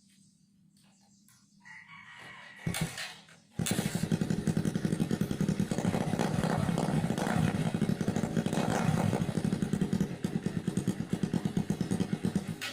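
Motorcycle engine running through a homemade chicken-pipe exhaust, a rapid, even pulsing exhaust note. It comes in suddenly about three and a half seconds in, after a few seconds of low sound and a brief louder burst, and runs steadily to the end.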